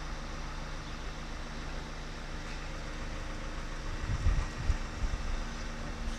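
Steady low motor hum, with a few low thumps about four to five seconds in.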